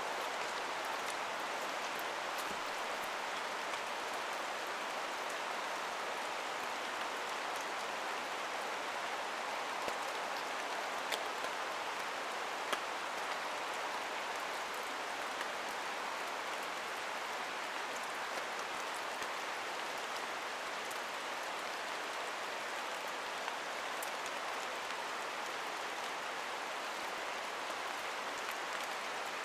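Steady rain falling: a constant hiss with scattered sharp drip ticks.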